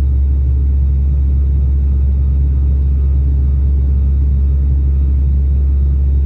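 Steady low engine drone inside an airliner's cabin in flight.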